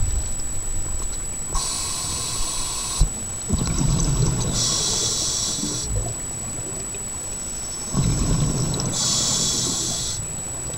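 A scuba diver breathing through a regulator underwater: three hissing breaths a few seconds apart, with the low rumbling bubble noise of exhaled air between them.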